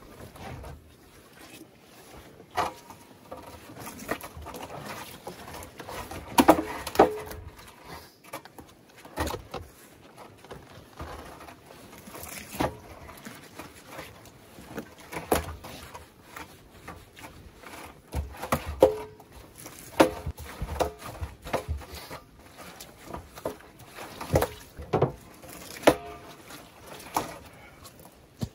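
Irregular knocks and wet thuds of lumpfish being handled on a small boat's deck and in a plastic barrel, a few every second or two, some with a short hollow ring.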